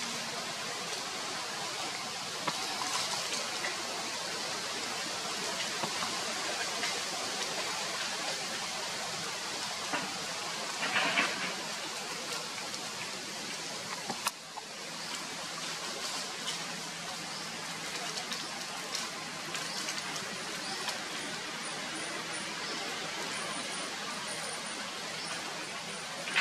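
Steady outdoor background hiss with faint, scattered high ticks. A brief louder sound rises out of it about eleven seconds in, and there is one sharp click a little after fourteen seconds.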